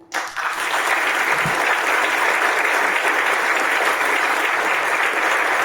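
Audience applauding steadily right after a string quartet's piece ends, the last bowed notes dying away just as the clapping starts.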